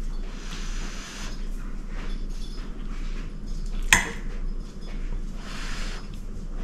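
A metal fork clinks sharply once against a ceramic plate about four seconds in, while spaghetti is twirled on it. Softer eating noises come as forkfuls of pasta reach the mouth near the start and near the end.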